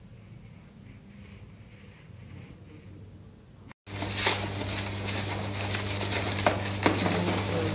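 Faint handling of soft cotton fabric. About four seconds in, a sudden switch to a louder scene: a steady low hum with scattered clicks and knocks of small cosmetic packages being handled for packing.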